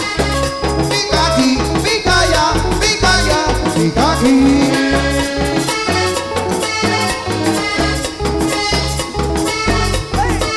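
Live accordion-led dance band playing an instrumental passage. A button accordion carries the melody over electric bass, a metal scraper and percussion keeping a steady beat.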